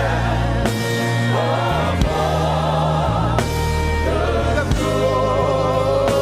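Live gospel worship music: a congregation or choir singing with vibrato over sustained keyboard and bass chords.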